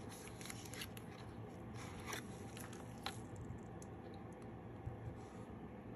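Faint rustling and small clicks of a Germania 10-ounce silver bar being slid out of its box and handled, busiest in the first three seconds, then quieter.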